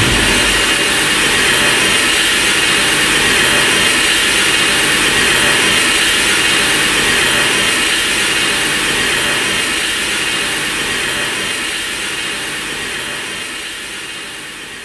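Sound effect of Kiryu, the Mechagodzilla of the 2002–2003 Godzilla films: a long, steady, jet-like mechanical roar with high steady tones, fading out over the last few seconds.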